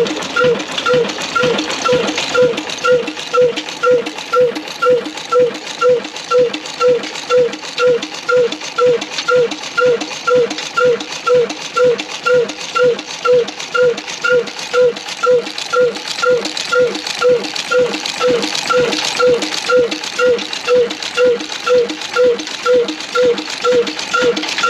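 Old single-cylinder horizontal stationary diesel engine with a large flywheel, running steadily at about two beats a second. Each beat has a short metallic ring, and the valve gear clatters between beats.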